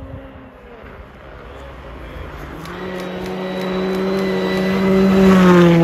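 Ford Fiesta rally car's engine running hard as the car approaches on a snow stage. It grows steadily louder and peaks near the end as the car passes close, where the engine note drops in pitch.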